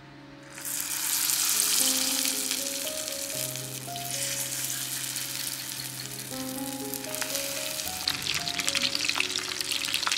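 Rice-paper spring rolls deep-frying in hot oil: a dense sizzle that starts about half a second in as the rolls go into the oil. The sizzle turns more crackly, with spatter, in the last couple of seconds as the pot fills with rolls.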